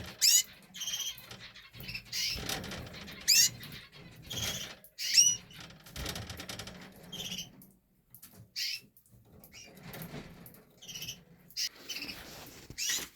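Canaries in a birdroom giving short, sharp chirping calls that sweep quickly in pitch, spaced a second or two apart, with low rustling between the calls.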